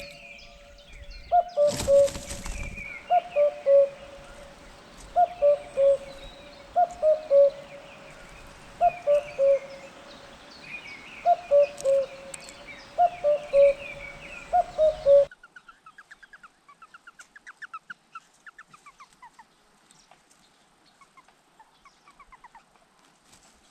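A bird's low two-note calls, each falling from a higher to a lower note, repeated again and again in short groups, with higher chirping behind. There is a loud thump about two seconds in. About fifteen seconds in the calls stop abruptly, leaving only faint, quick, high chirps.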